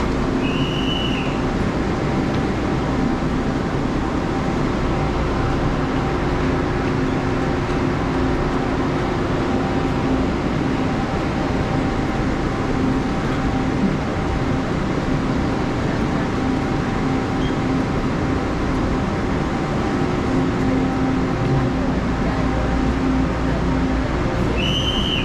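Steady din of an underground railway platform beside a standing Tze-Chiang express train: a constant hum of machinery with crowd noise beneath it. A high electronic beep sounds at the very end.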